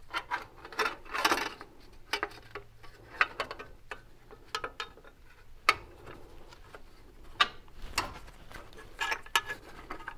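Irregular clicks and metallic taps of hand tools and metal parts being handled as the spark plug wire guide brackets are fitted and bolted to the engine block, some coming in quick little clusters.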